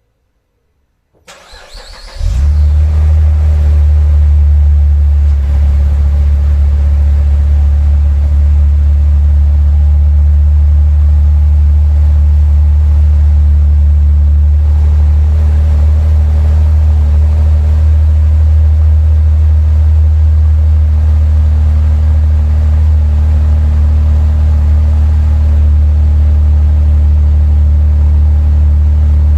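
Opel Vectra C's 2.8-litre turbocharged V6 (Z28NET) on its stock exhaust, started from cold: the starter cranks for about a second, then the engine catches and settles into a steady idle.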